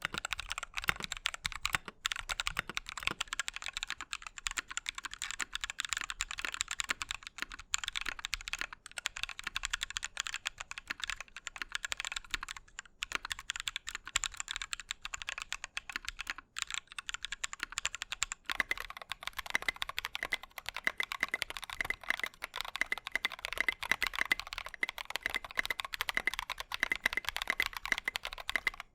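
Continuous fast typing on a 60% mechanical keyboard with Drop Holy Panda v2 tactile switches in an aluminium plate: a dense run of keystroke clacks. About eighteen seconds in, the tone of the clacks changes, as if a different keycap set were being typed on.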